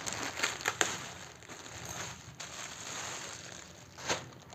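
Parcel packaging crinkling and rustling as it is handled and opened. A flurry of sharp crackles comes in the first second, then steadier rustling, and one sharper crackle near the end.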